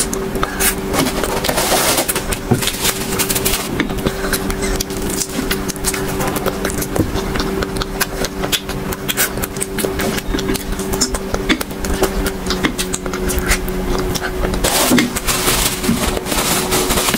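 Close-miked chewing and mouth sounds of someone eating a soft sweet: a dense run of wet clicks and smacks. A steady low hum runs underneath.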